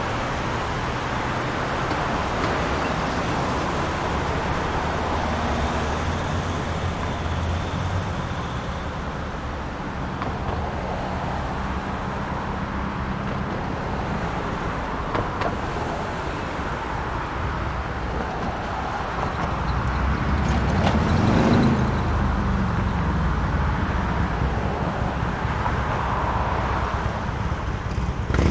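Suburban street traffic: a steady background of cars driving past, with one vehicle passing close and growing loudest about three quarters of the way through.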